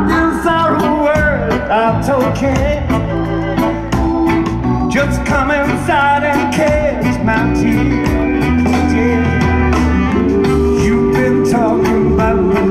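Live pop band playing loudly through a concert PA, heard from the audience: a steady drum beat, bass, guitar and a wavering lead vocal line.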